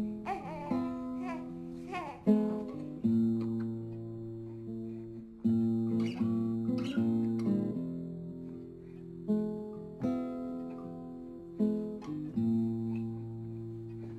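Nylon-string classical guitar fingerpicked slowly: single notes and broken chords ringing on, a new chord plucked every second or two.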